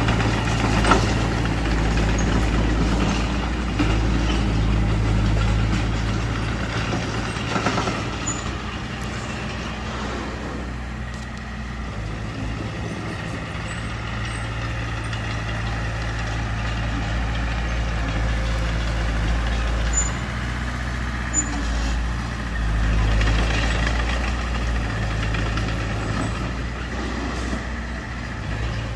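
Bulldozer's diesel engine running steadily at work, easing off briefly near the middle and rising again later, with a few short knocks.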